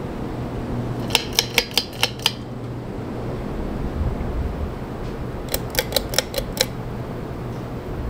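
Many ceiling fans running together with a steady low hum and air noise. Two short runs of about six quick clicks, about five a second, come about a second in and again about five and a half seconds in.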